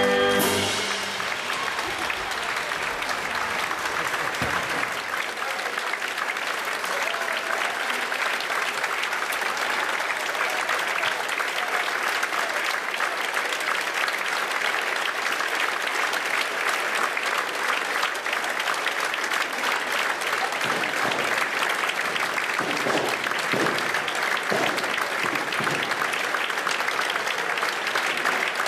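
Theatre audience applauding steadily and at length after an orchestral final chord and a cymbal crash that rings out in the first second. A few cheering voices rise above the clapping past the middle.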